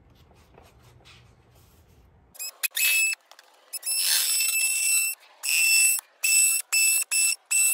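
Cordless DeWalt oscillating multi-tool cutting through a cardboard template, running in a string of short bursts with a high, steady whine. It starts about two and a half seconds in, with the longest burst lasting about a second.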